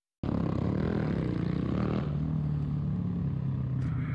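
Motorcycle engine running, cutting in suddenly about a quarter second in with a steady engine note that shifts slightly in pitch about two seconds in.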